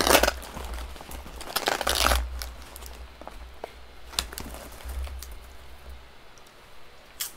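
A popcorn bag being pulled open and crinkled. There is a loud rustling burst at the start and another about two seconds in, followed by scattered small crackles.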